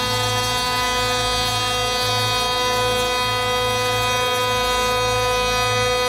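CNC router spindle whining at one steady pitch as a small end mill cuts the profile of a solid brass plate, with a lower hum that breaks off and returns now and then.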